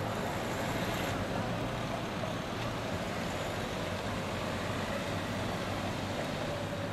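City street traffic noise, with a car driving past close by.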